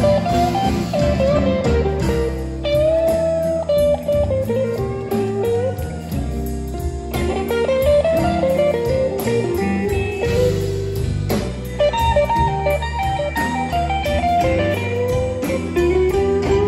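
Live blues band: an electric guitar plays a lead line with bent notes over rhythm guitar, bass and a drum kit keeping time on the cymbals.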